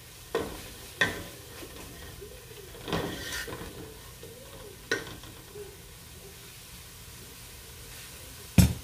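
A spoon knocks and scrapes against a cooking pot as spice paste is stirred and fried in oil, over a steady low sizzle. There are five sharp knocks, the loudest near the end.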